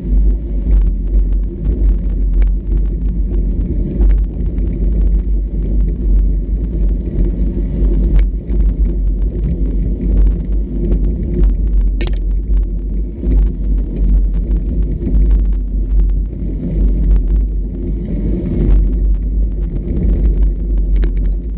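Off-road vehicle under way on a bumpy trail: a steady heavy low rumble of engine and ride, with a few sharp knocks and rattles scattered through.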